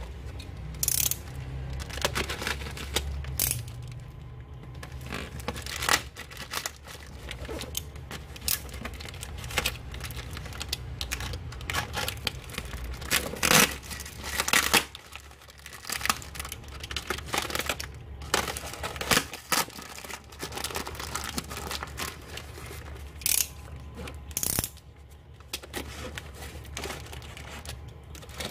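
A black plastic mailer bag being torn open and crinkled by hand around a cardboard box: irregular rustling with sharp ripping strokes, some louder than others.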